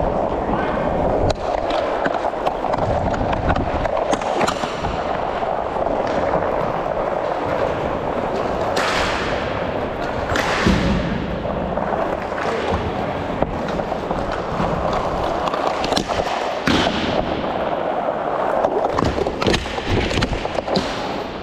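Inline hockey skate wheels rolling on plastic sport-court tiles, with sharp clacks of sticks and puck echoing in the hall now and then; the loudest are two about nine and ten and a half seconds in.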